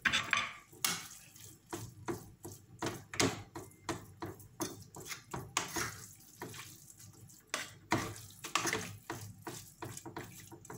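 Wooden spatula stirring and scraping through a frying pan of spinach and cottage cheese, mashing the cheese in, with irregular wet strokes and taps on the pan, a couple a second.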